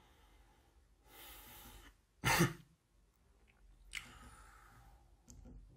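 A pause in a man's talk: a faint breath, then a single short cough-like burst a little over two seconds in, followed by faint breathing and a small click.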